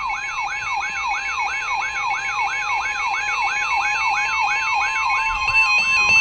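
Electronic siren-style alert tone: a pitch sweeping up and down about three times a second over a steady high tone, sounding ahead of an emergency weather warning.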